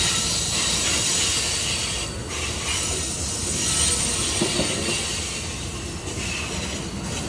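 Amtrak Coast Starlight's bilevel Superliner passenger cars rolling slowly past, their steel wheels running on the rails in a steady rumble.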